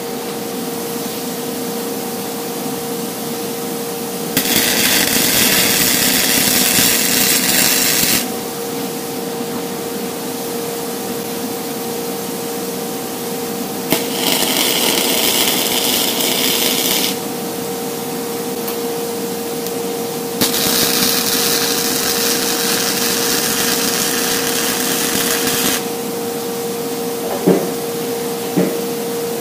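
Electric arc welder tack-welding the cut steel axle tube back together: three separate welds, each lasting three to five seconds, with a steady shop hum in between.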